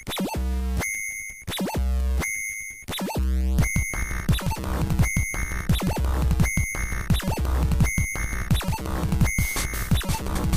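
Electronic background music with a steady beat, getting fuller and busier about three and a half seconds in.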